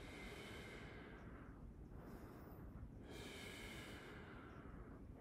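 A man's slow, deep breathing during a stretch: two long, faint breaths about three seconds apart, with a softer one between them.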